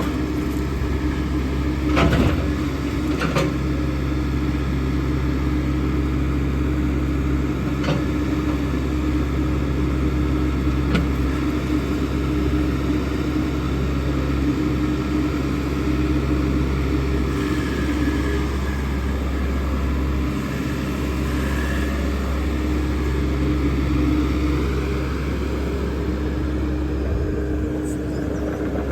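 Engine of a log-loading machine running steadily under load, with two sharp knocks about two and three seconds in as logs are handled, and a higher whine that wavers in pitch in the middle.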